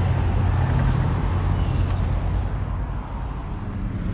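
Steady low rumble of passing road traffic, easing slightly in the second half.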